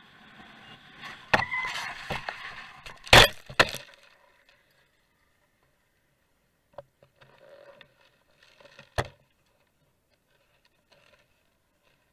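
Road crash: steady driving noise gives way to a series of hard impacts and scraping, loudest about three seconds in, as the camera-carrying vehicle goes down and the camera is thrown into the dirt. Then it is quiet apart from a few light knocks and one sharp knock about nine seconds in.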